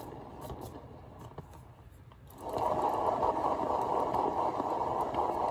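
Paint-pouring canvas spinner turning, a steady whirring noise that fades for a moment and comes back louder about two and a half seconds in.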